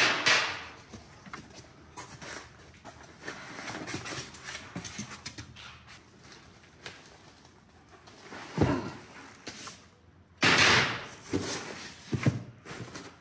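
A heavy milling vise being unpacked from a cardboard box: cardboard and foam packing handled, with scattered clicks and knocks. There are two dull thumps, and a loud rustling scrape about ten seconds in.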